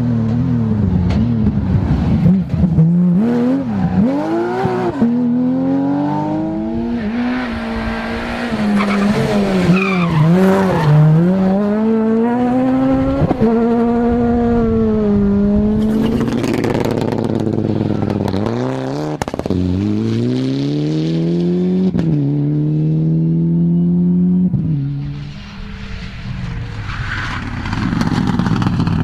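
Rally cars at full throttle, one after another: a Porsche 911, a Ford Fiesta S2000 and a Mitsubishi Lancer Evolution. Engines rev high and drop at each gear change, with sharp cracks between shifts and some tyre squeal.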